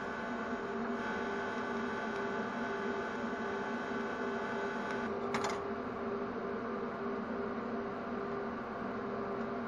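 TIG welding arc giving a steady electrical buzz that stops about five seconds in with a short hiss. The welding machine's lower hum carries on after it.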